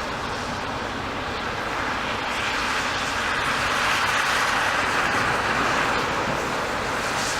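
Strong gusty wind making a steady rushing noise that grows a little louder about three seconds in.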